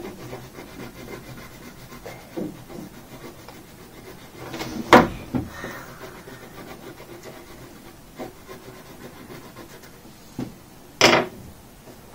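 Wax crayon rubbing back and forth on paper laid on a wooden table as a shape is coloured in, a soft continuous scratching. Two sharp knocks on the table break through, one about five seconds in and one near the end.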